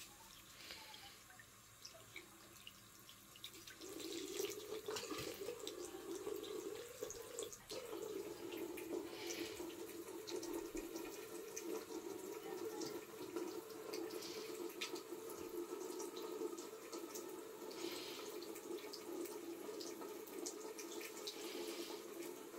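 Bathroom faucet running a thin stream of water into the sink, faint at first and steadier and louder from about four seconds in.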